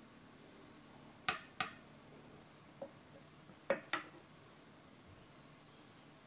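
Metal knitting needles clicking against each other as stitches are worked: four sharp clicks in two pairs. Faint short high-pitched chirps come and go behind them.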